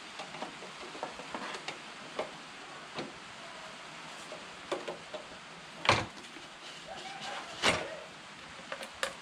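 Small clicks and rubbing from a ribbed rubber intake air hose and plastic engine-bay parts being worked loose by hand, with two sharp clunks, about six seconds in and just before eight seconds.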